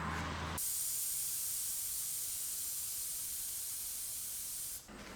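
Compressed air hissing steadily at a dirt-bike tire's inner-tube valve for about four seconds, then cutting off, as the tube's pressure is adjusted to seat the tire beads. A low hum stops just as the hiss begins.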